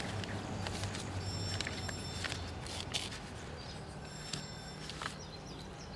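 Paper sandwich wrappers crinkling and rustling in the hands as two people eat, in scattered short crackles, over a low steady hum. A few faint high chirps are heard near the end.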